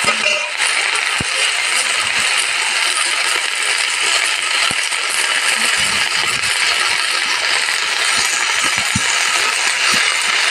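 Cabbage and potatoes frying in a hot wok (kadhai): a steady sizzling hiss with a few sharp pops here and there.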